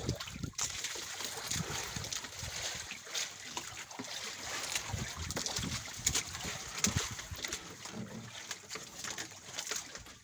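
Sea water sloshing and splashing against the hull of a small fishing boat, with scattered short knocks.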